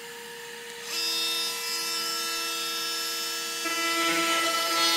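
Battery-powered Milwaukee Packout wet/dry vacuum running steadily on high. About a second in, a Milwaukee oscillating multi-tool starts up with a steady buzz. Near the end it gets louder and rougher as the blade plunges into the drywall.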